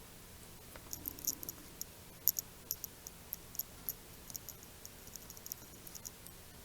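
Faint, irregular, high-pitched crackling ticks, about twenty in five seconds, from solder flux as a wire is soldered to a flight controller's ground pad.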